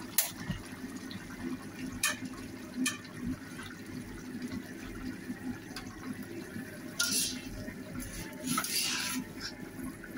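Beef curry bubbling and popping at a hard boil in a pan, with a few sharp clicks and two short hisses in the second half.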